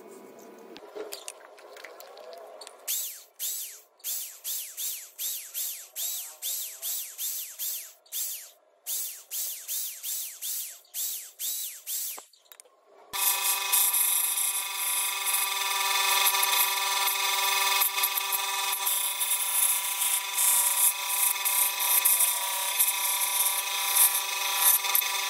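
Hands rubbing a paper pattern onto a wooden board, then an electric drill running in short bursts, about two a second, as it bores small pilot holes through the pattern. About halfway through, a scroll saw starts and runs steadily, its blade cutting the wood.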